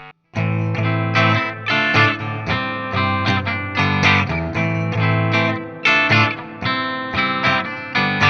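Cort G260 electric guitar playing picked notes and chords in a fairly clean tone, starting after a brief silence about a third of a second in. The notes ring with sharp attacks, two or three a second.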